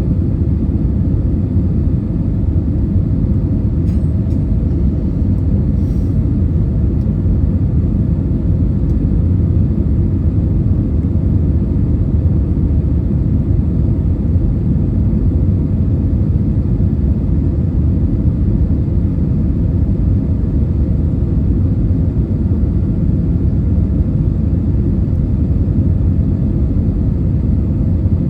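Cabin noise inside a British Airways Airbus A320: a steady low rumble of airflow and engines that does not change.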